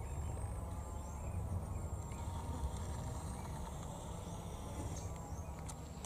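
Faint forest ambience: a low, steady rumble with a few faint high chirps.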